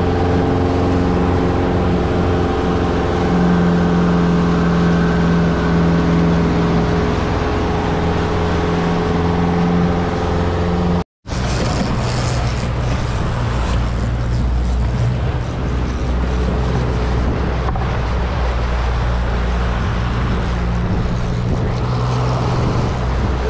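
Yamaha 150 outboard motor running steadily under way, with water rushing in the boat's wake. After a cut about 11 seconds in, the engine drone sits lower under more wind and water noise.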